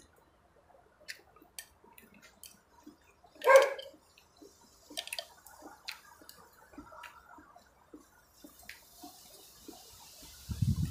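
Close-up eating sounds of noodle soup: scattered small wet mouth clicks and taps, with one loud slurp of noodles about three and a half seconds in. A low muffled sound comes in near the end.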